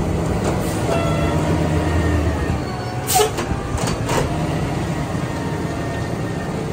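Mack LEU garbage truck's engine running steadily, with a few sharp metallic clanks a little after three and four seconds in.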